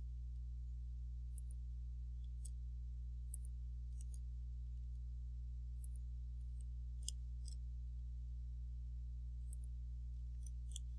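Faint computer mouse clicks, scattered and irregularly spaced, over a steady low hum.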